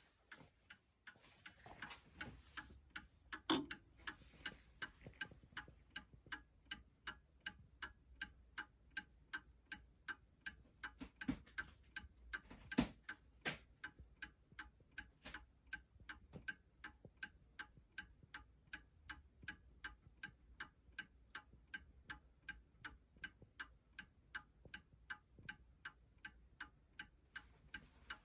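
Antique Seth Thomas Sonora Chime clock ticking steadily and faintly, about two to three ticks a second, with a few louder knocks in among the ticks.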